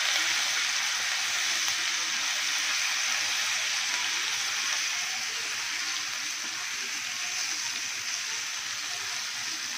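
Ginger-garlic paste sizzling in hot oil on a flat tawa as it is stirred with a wooden spatula: a steady frying hiss that gradually gets quieter as the paste sautés toward light brown.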